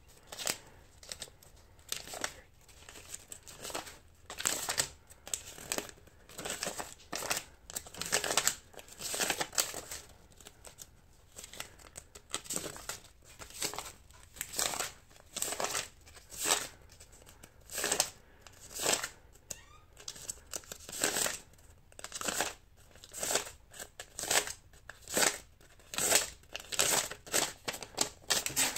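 Paper dollar bills being counted by hand one at a time, each note giving a short crisp rustle as it is flicked off the stack and laid down, about one a second or a little faster.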